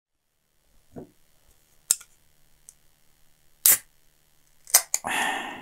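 Aluminium drink can being handled with a few sharp clicks, then its ring-pull cracking open near the end with a pop and a short hiss of escaping gas that fades.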